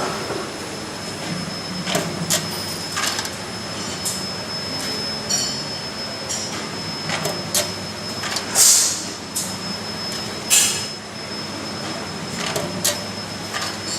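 Automatic linear tunnel-type vial washing machine running: a steady mechanical hum with a thin high whine, overlaid by frequent short clicks and knocks. Two loud bursts of hiss come about 8.5 and 10.5 seconds in.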